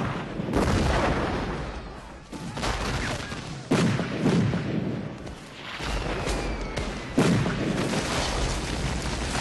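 Film battle soundtrack of Civil War musket and cannon fire: a steady low rumble broken by several sudden heavy blasts a few seconds apart.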